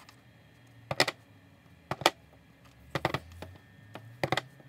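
Clear acrylic stamp block tapped repeatedly on a plastic-cased ink pad and on card, a short cluster of sharp clacks about once a second.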